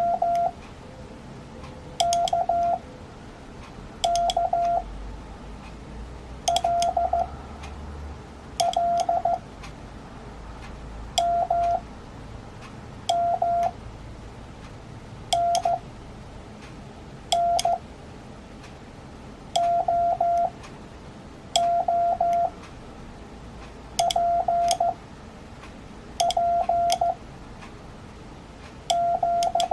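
Morse code (CW) tone, one steady mid-pitched beep keyed in short groups of dots and dashes, about one letter every two seconds, with a click as each group begins.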